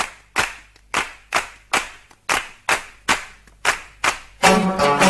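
Rhythmic hand claps at about two to three a second, opening a song. Near the end, pitched music with plucked strings and a steady low drone comes in.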